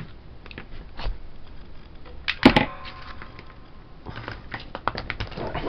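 Test leads and small plastic connectors being handled on a tabletop: faint scattered clicks, one sharp knock about two and a half seconds in with a short ring after it, and a run of small clicks near the end.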